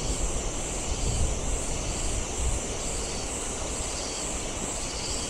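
Wind rumbling on the microphone under a high drone of forest insects that swells and fades about twice a second.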